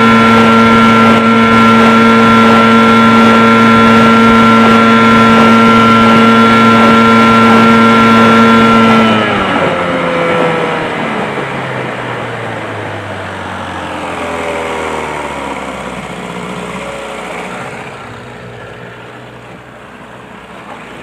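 1988 Evinrude 15 HP two-stroke outboard running steadily at full throttle, then throttled back about nine seconds in: the engine note falls sharply and settles to a much lower, slower run.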